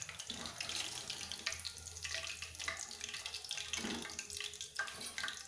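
Hot oil sizzling and bubbling around chicken pieces deep-frying in a pan, with a few light knocks from a wire-mesh skimmer lifting the pieces out.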